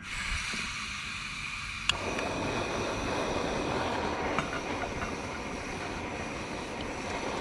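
Portable gas-cartridge camping stove: gas hisses as the valve is opened, then a sharp igniter click about two seconds in and the burner lights and runs with a steady, fuller rushing sound.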